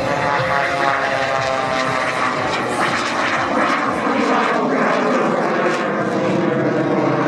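Jet-assisted biplane under power in a steep climb. Its 450-horsepower piston engine and propeller drone steadily, with a rushing jet-engine hiss on top.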